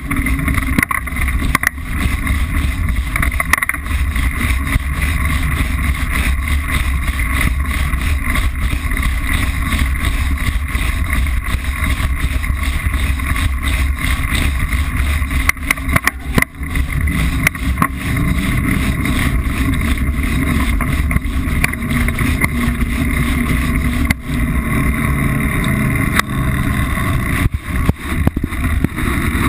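Steady rumble and rattle of a Liteville 301 full-suspension mountain bike rolling over a rough dirt trail, picked up by a camera mounted on the bike, with many small knocks from the bumps and wind noise on the microphone.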